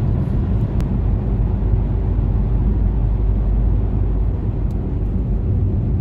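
Steady low rumble of a moving car heard from inside the cabin: tyre and engine noise at road speed, with one faint tick under a second in.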